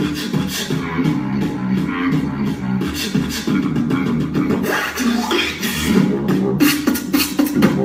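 Solo human beatboxing in a technical style: a low bass line that steps between a few notes, with sharp percussive mouth sounds over it that come faster near the end.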